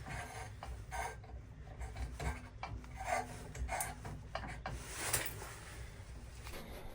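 Irregular scraping and rubbing, a series of short strokes about a second apart.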